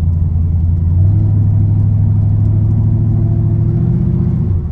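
Dart 383 stroker V8 with Garrett twin turbos in a 1955 Chevrolet 3100 pickup, running steadily while the truck drives along, heard from inside the cab. It is a steady, low engine note that edges up in pitch and drops a little near the end.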